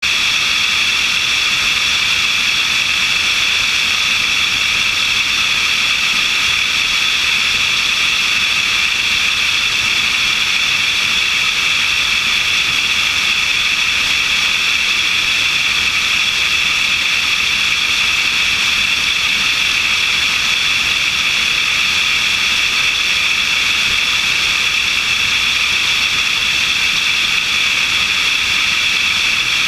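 Steady, loud rush of airflow and airplane noise picked up by a camera mounted on the wing in flight, an even hiss-like roar that does not change.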